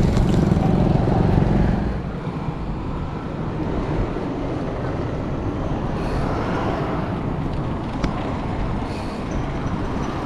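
Road traffic noise: a heavy low rumble for about the first two seconds that then drops away, leaving a steadier, quieter road noise.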